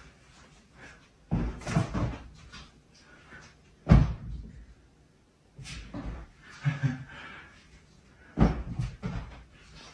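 A kitten landing on an upholstered sofa, giving several dull, soft thumps a few seconds apart, the loudest about four seconds in.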